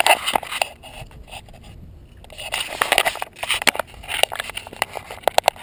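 Handling noise on a tricopter's onboard camera: irregular scrapes, rubs and sharp clicks as the frame is gripped and moved against the concrete, with clusters of clicks about half a second in, around three seconds in and near the end.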